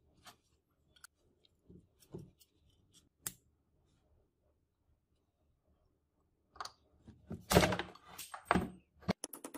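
Thin steel blade blank and brass handle fitting handled and set down on a wooden workbench: a few light clicks and knocks, then a cluster of louder knocks and scrapes between about seven and nine seconds in.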